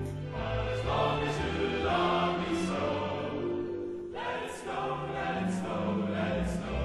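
Music: a choir singing sustained chords over an instrumental backing.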